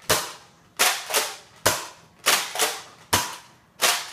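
Nerf Recon Mk II spring blaster firing foam darts in steady succession: a sharp clack for each shot, three about a second and a half apart, with the two strokes of the slide being primed back and forward clacking in between.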